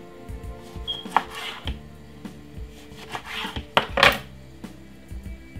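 A knife slicing a lemon on a wooden cutting board: a handful of cuts and knocks of the blade on the board, the loudest about four seconds in, over background music.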